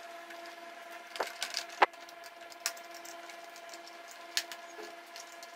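A handful of short, sharp plastic clicks and taps, the loudest about two seconds in, as a TV's clip-fastened plastic back cover is handled and pried with a screwdriver, over a faint steady hum.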